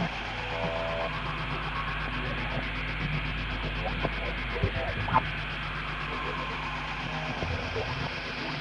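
Ghostly 'voices from beyond' sound effect: a steady electrical hum and radio-like static, with brief garbled voice-like fragments and a couple of sharp clicks a little past the middle.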